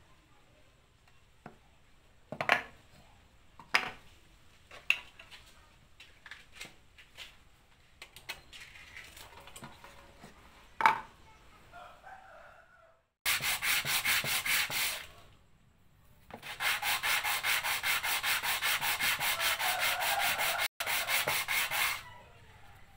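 A wooden block handled and set down on a bench with a few sharp knocks, then hand sanding: sandpaper on a block rubbed quickly back and forth over a wooden board, several strokes a second, in a short run and then a longer one after a brief pause.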